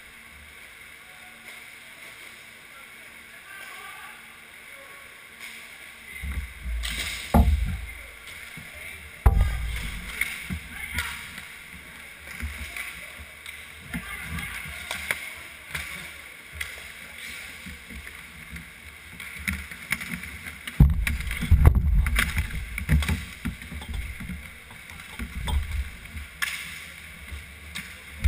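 Hockey game heard from inside the goal: skate wheels rolling on the rink floor, with sharp clacks of sticks and puck, a couple of them loud about a third of the way in. Heavy close thumps and rumbling come from the goalie moving in the crease around three-quarters of the way through, with voices in the background.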